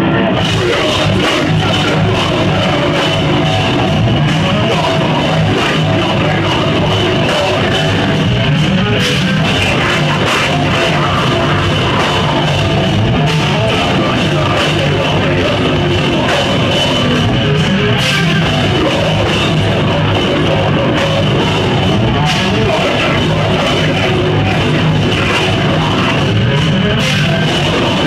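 Live heavy metal band playing loud with electric guitars and a drum kit, with no breaks.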